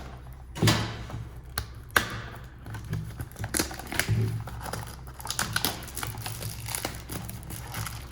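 A trading card box being opened by hand: plastic wrap crinkling and cardboard being handled, with scattered sharp clicks and taps and a few soft thuds.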